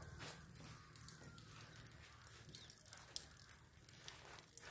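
Faint rain: light, scattered drips and patter with otherwise near silence.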